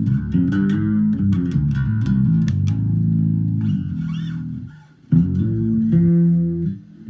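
Harley Benton B550 five-string fretless bass guitar played with the fingers: a run of sustained low notes changing pitch, with light string and finger clicks. The playing breaks off briefly a little under five seconds in, then resumes with a few more notes that stop near the end.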